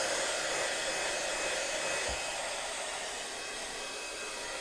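Handheld craft heat gun blowing a steady stream of hot air, an even rushing hiss with a faint high whine, drying wet acrylic paint on a canvas.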